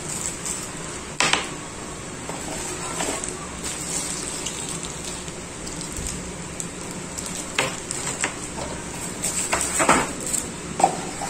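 Action-camera accessories and their plastic packaging being handled and unpacked: rustling with scattered light clicks and knocks, a sharp one about a second in and several more near the end.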